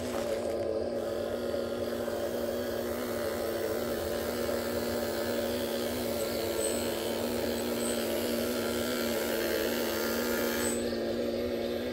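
RC model Kobelco excavator running, its motors giving a steady electric whine. A higher hiss joins about a second in and drops away near the end.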